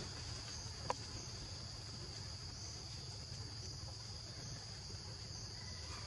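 Steady high-pitched drone of insects calling, over a low background rumble, with a single short click about a second in.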